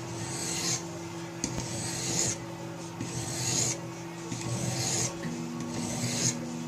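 Sharpening stone of a Riorand guided-angle knife sharpening kit stroked along a knife blade near its tip, about five even rasping strokes, one every second and a half or so. The stone is grinding the edge bevel at the tip, where marker ink shows it has not yet reached.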